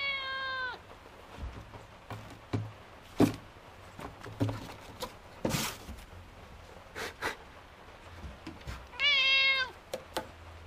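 Domestic cat meowing twice, once right at the start and again about nine seconds in, each call about a second long or less. Scattered knocks and scrapes sound between the two meows.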